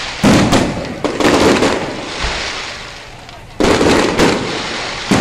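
Firecrackers going off in dense crackling volleys: four sudden loud bursts, each starting abruptly and trailing off over a second or so.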